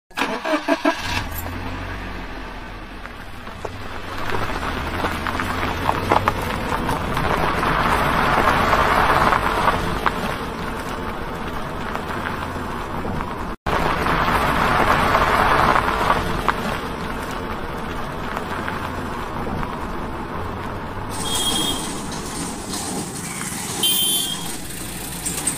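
Sonalika DI 47 RX tractor's diesel engine running steadily as it pulls a trailer past on the road, swelling louder as it passes. The sound breaks off for a moment about halfway and the engine is heard again. A few short high-pitched sounds come in near the end.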